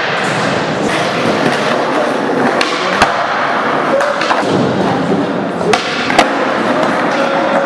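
Skateboard wheels rolling on a concrete floor, with sharp clacks as the board's tail pops and the board lands during flatground flip tricks, the loudest about three seconds in and a pair near six seconds.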